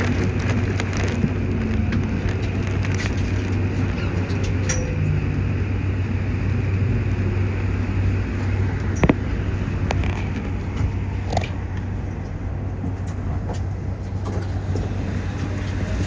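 Interior running noise of a Toei 5500-series electric train coming into a station and standing at the platform: a steady low hum under a broad rumble, with heavy rain crackling and ticking on the car's windows. It gets a little quieter in the second half.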